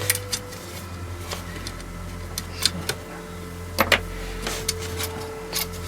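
Metal parts of a trolley jack clinking and knocking irregularly as they are handled and fitted, with a sharp double knock near the middle, over a steady low hum.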